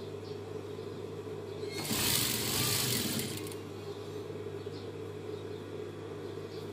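Sewing machine stitching in one short run of about a second and a half, starting about two seconds in, over a steady low hum.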